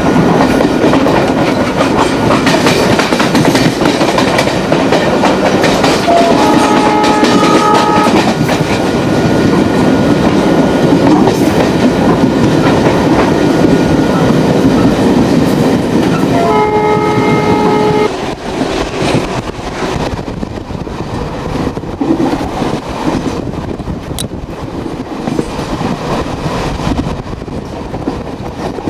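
Passenger train running on the rails with a steady rumble and clatter, its locomotive horn sounding twice, each blast a chord lasting about a second and a half, some ten seconds apart. The running noise gets quieter just after the second horn.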